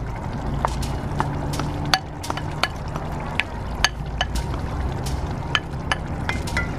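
A slotted wooden spoon scraping a thick paste out of a bowl into a cast-iron pot of simmering tomato sauce, with irregular clicks and pops over a steady low rumble.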